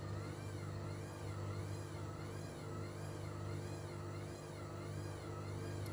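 Steady low hum with a faint high whine that wavers up and down about twice a second.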